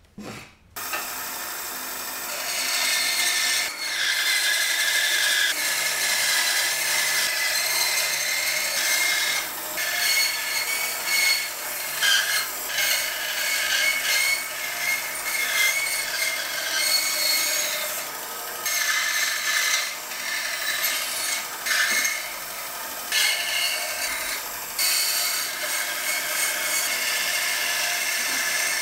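Bandsaw running and cutting through a thick wooden block, a steady sawing noise that dips briefly every few seconds as the wood is fed and turned along a curve. It starts about a second in.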